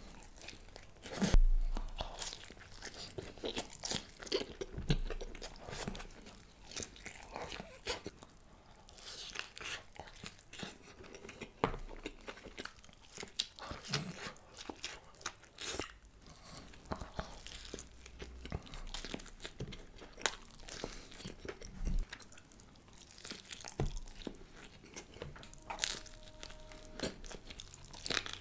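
Mukbang eating sounds: a man biting into and chewing slices of loaded Domino's pizza, the crust crunching with many small crackles, the loudest bite about a second and a half in.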